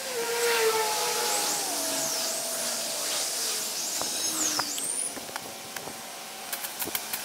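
Outdoor background: a distant motor's whine, slowly falling in pitch, with a few high chirps from a bird in the middle and a steady high hiss. A few light clicks near the end.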